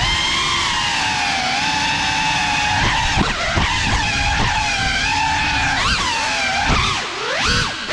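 FPV quadcopter's electric motors and propellers whining, the stacked pitch rising and falling with the throttle, with several quick swoops in pitch in the second half.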